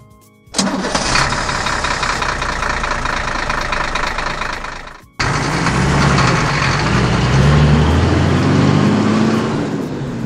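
Truck engine sound effect: a rapid, harsh cranking starts suddenly about half a second in and fades out around the five-second mark; after a brief break the engine runs with a low, uneven rumble.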